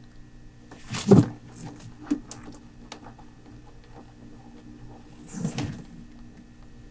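Handling noise from a rubber-gloved hand and soft cloth moving around a plastic pet carrier. There is a loud rustle and bump about a second in, a few light clicks, and another hissy rustle about five seconds in.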